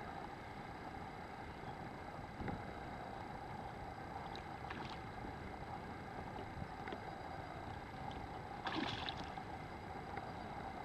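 Steady ambience over open reservoir water, with one short splash on the water's surface about nine seconds in.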